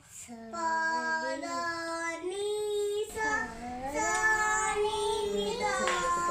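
A child singing a melody in a high voice, holding notes that step up and down in pitch, with sliding notes in the second half.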